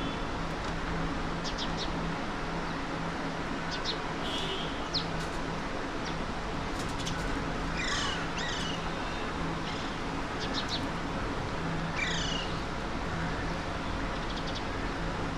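Parakeets calling: short, harsh downward-sweeping screeches about eight seconds and about twelve seconds in, with faint quick high chirps between them, over a steady background hum.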